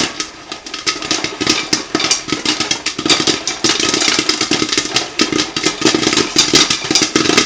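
Popcorn kernels popping rapidly inside a covered Whirly-Pop stovetop popper, a dense, irregular run of pops, mixed with the rattle of the popper's geared stirring arm as the crank handle is turned.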